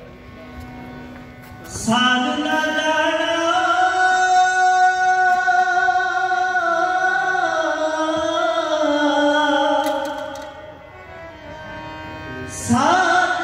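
Sikh kirtan: a singer holds one long, slowly wavering note over harmonium accompaniment from about two seconds in. The note fades out about ten seconds in, and a new sung phrase begins near the end.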